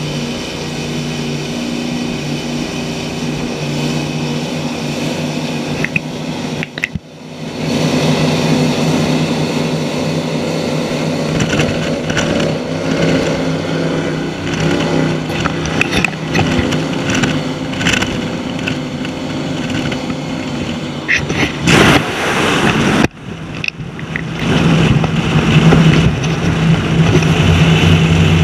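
High-performance powerboat engines running at speed, a steady deep engine note over the rush of wind and water. The sound dips briefly about seven seconds in and again about twenty-three seconds in, and the engine note is louder near the end.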